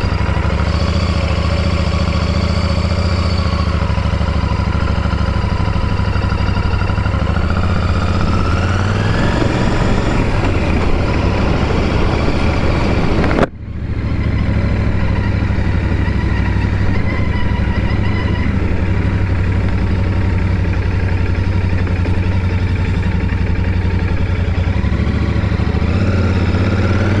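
Royal Enfield Shotgun 650's 648 cc parallel-twin engine and exhaust running on the move, its pitch rising as it accelerates about a third of the way in. The sound cuts out abruptly for an instant about halfway, then runs steady again and rises once more near the end.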